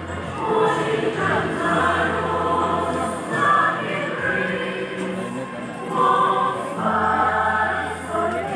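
Choral music: a choir singing in long held notes.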